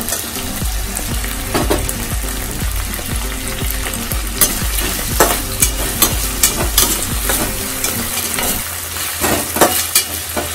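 Chopped onions, tomatoes and green beans sizzling in hot oil in a pan while being stirred. The utensil scrapes and clicks against the pan, more often in the second half.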